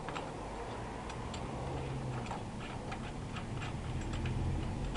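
Small metallic clicks, about two to three a second and not quite even, as bolts are worked into a motorcycle tank-bag mounting ring by hand.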